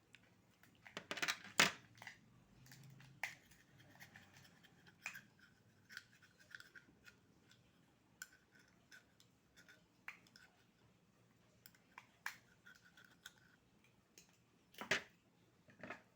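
Scattered sharp clicks and scrapes of oyster shells being handled at the table, with louder clatters about a second in and again near the end.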